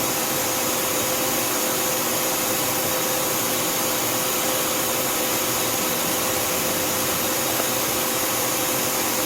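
Back drilling spindles of a 2011 Tsugami S206 CNC Swiss lathe running at 2,000 RPM: a steady, even whir with a constant hum.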